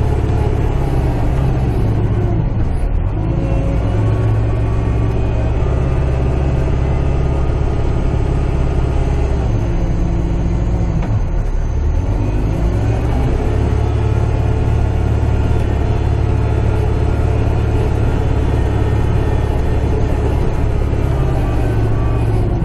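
Kubota tractor's diesel engine running steadily, heard from inside the cab while it works in the snow; the engine note dips and recovers a few seconds in and again about halfway through.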